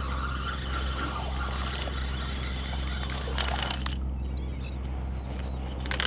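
A baitcasting reel being cranked as a hooked speckled trout is fought to the boat, with a short splash from the fish about halfway through. A steady low hum runs underneath.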